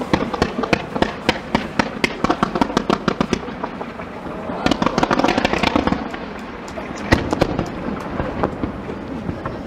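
Star mine fireworks barrage, computer-timed: a quick string of sharp bursts, several a second, then a dense stretch of crackling about halfway through. One more loud bang comes about seven seconds in, and the sound then fades away.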